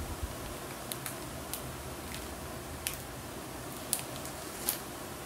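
Plastic soft-pack of wet makeup remover wipes being opened and a wipe pulled out: several short crinkles and clicks of the packet, over a faint steady hiss.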